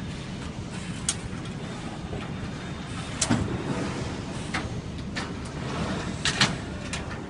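Steel filing-cabinet drawer sliding on its telescopic metal slides as it is fitted and pushed in and out, with a series of sharp metal clicks and knocks, the loudest pair a little after six seconds in. A steady low hum runs underneath.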